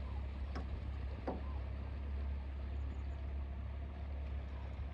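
Boat's outboard motor idling, a steady low hum, with a couple of brief clicks about half a second and just over a second in.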